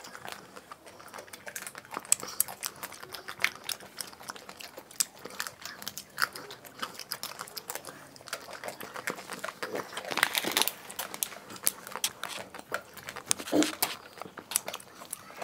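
Mouth sounds of several people eating ice cream bars: wet chewing and lip smacking with many small irregular clicks, and a louder cluster of them about ten seconds in.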